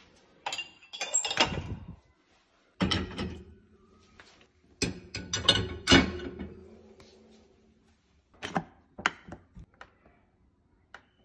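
Ceramic mugs and drinking glasses clinking and knocking against each other and the wire racks as a dishwasher is loaded, in several bursts of clatter. A few lighter clicks come near the end.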